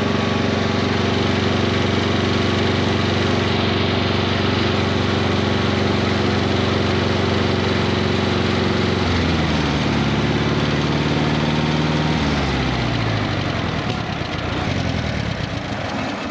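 Portable sawmill's gas engine running steadily at cutting speed. About nine seconds in, its pitch falls over several seconds as it is throttled down.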